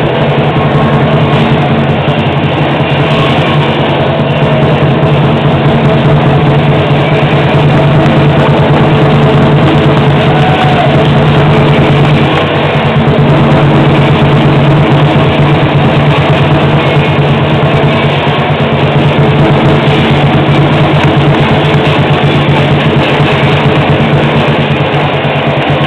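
Chinese lion-dance drum and several pairs of hand cymbals playing loud, continuous percussion.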